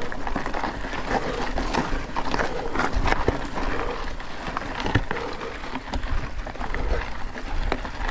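Cannondale Scalpel Carbon 2 mountain bike ridden along a dirt singletrack: tyres crunching over the ground, with frequent short knocks and rattles from the bike, and a low rumble of wind on the helmet camera's microphone.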